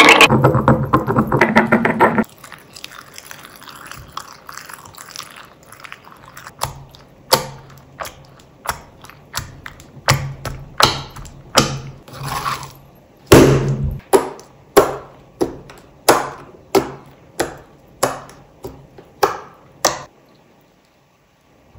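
Wet slime being mashed with a pestle in a stone mortar: continuous squelching for the first two seconds, then a run of short squishes about once or twice a second, stopping near the end.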